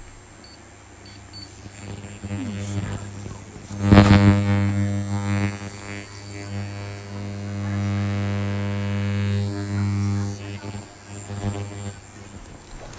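Handheld ultrasonic skin scrubber with a metal spatula blade, buzzing with a steady low hum. The buzz jumps much louder about four seconds in as the blade works against the cheek, then drops back after about ten seconds.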